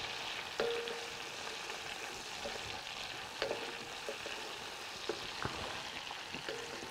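Diced Iberian pancetta and chopped red pepper sizzling steadily in olive oil in a large black two-handled pan, the pepper just added and still frying down. A wooden spoon stirs them, with occasional knocks and brief scrapes against the pan.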